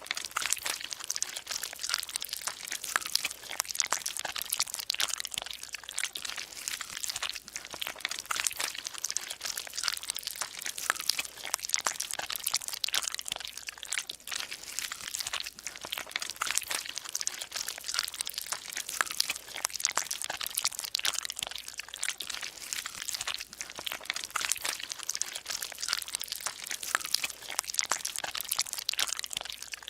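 Continuous dense crackling noise made of many tiny clicks, steady in level throughout.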